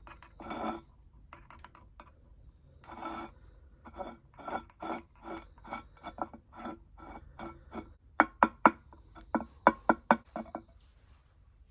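Metal tweezers scraping and prodding small granular soil in a ceramic pot. Grains and the pot give a run of short, ringing clinks. A quicker series of louder, sharper clinks comes near the end.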